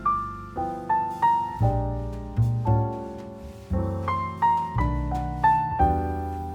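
Background piano music: single notes played one after another over held low bass notes, each note struck and then fading.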